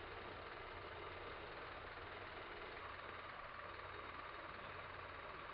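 A vehicle engine idling faintly and steadily, a low even hum with no change.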